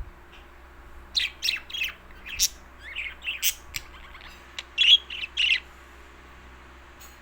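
Pet bird making a quick series of short, sharp chirps and squawks, about a dozen calls starting about a second in and stopping before the end.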